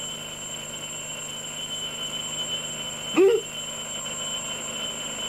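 Steady tape hiss with a faint high whine. About three seconds in, a man gives a short wordless vocal sound as he wakes and sits up in bed.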